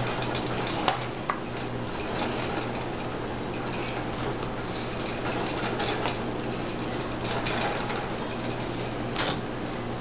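A spoon rubbed and pressed around wet leather on a plastic cutting board while wet-molding a sheath: soft scraping and rubbing, with two sharp clicks about a second in and another near the end. A steady low hum runs underneath.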